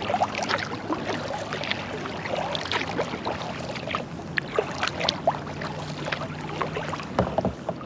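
Kayak paddling on lake water: the blades dip and pull through the water, with many small drips and splashes off the paddle and a larger splash near the end.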